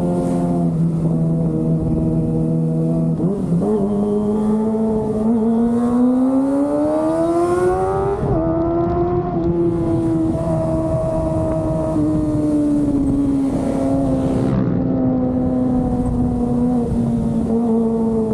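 Kawasaki ZX-25R's 249 cc inline-four engine running under way. It holds a steady note, climbs in pitch for a few seconds to a peak about eight seconds in, drops sharply as the rider shifts gear, then eases slowly down, with a second small drop near the end.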